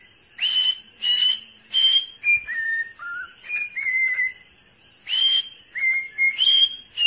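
A whiteface cockatiel whistling a learned tune. About a dozen clear notes step down and back up in pitch, some of them sliding, with a short break a little past the middle.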